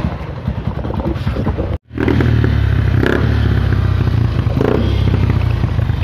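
Motorcycle engine with an Apido aftermarket exhaust pipe idling with a steady, even exhaust pulse. The sound cuts out for a moment about two seconds in, then carries on louder.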